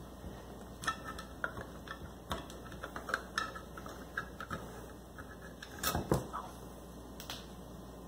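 P-38 military can opener cutting around the rim of a steel food can, each short levering stroke of its blade through the metal giving a sharp click, about one a second at an uneven pace. A louder double knock comes about six seconds in.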